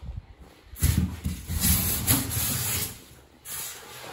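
Plastic-wrapped packaging rustling against a cardboard box while the parts are handled. The rustle runs for about two seconds from about a second in, with a brief quieter rustle near the end.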